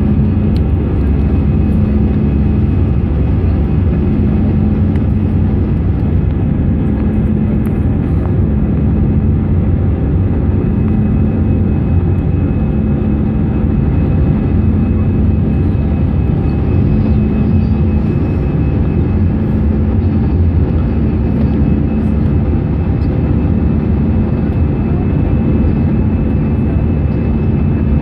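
Airbus A319 jet engines and airflow heard from inside the cabin over the wing during the climb after takeoff: a steady, loud, low roar with a hum that pulses slowly and regularly.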